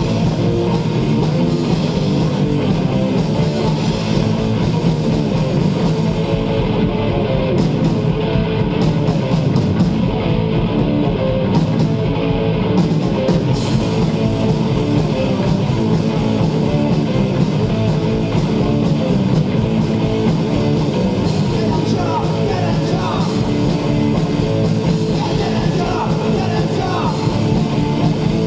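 Live rock band playing loud: electric guitars, bass and drum kit. For a few seconds about a quarter of the way in the high end thins out, then the full band sound returns.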